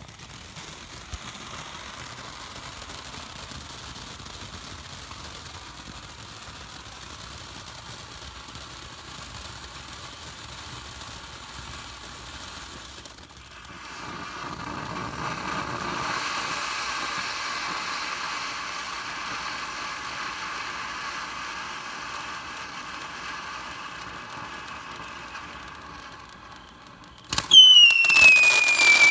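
"Cat Calls" firework fountain hissing steadily as it sprays sparks, growing louder about halfway through. Near the end it suddenly gets much louder and lets out a loud whistle that falls in pitch.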